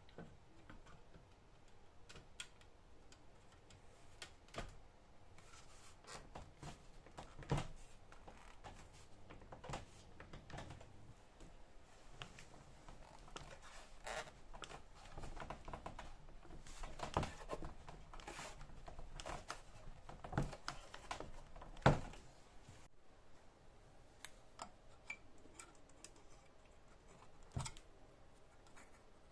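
Scattered light clicks and knocks of small parts and tools being handled during electronics repair work, irregularly spaced, the sharpest about a third of the way in and a few near three quarters of the way through.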